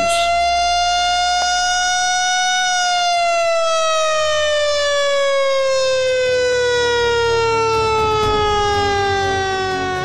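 A siren wailing in one long sweep: its pitch rises slightly for the first few seconds, then falls slowly and steadily.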